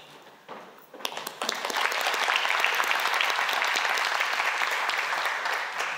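Audience applauding. Scattered claps begin about a second in and swell into full, steady applause that eases off near the end.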